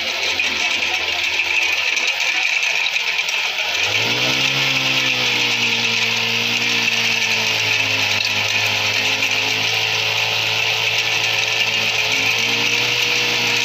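Honda GX35 35 cc four-stroke single-cylinder engine on a brush cutter, running with a rotary weeder attachment whose tines are churning loose soil. About four seconds in the engine revs up and then holds a steady pitch until near the end.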